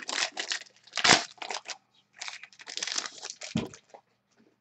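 A trading-card pack wrapper being torn open and crumpled: a run of crinkly rustles with a couple of heavier crunches, stopping about four seconds in.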